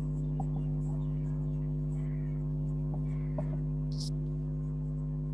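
Steady electrical hum, a low buzzing drone that does not change, with faint strokes of a marker writing on a whiteboard and one sharper high marker stroke about four seconds in.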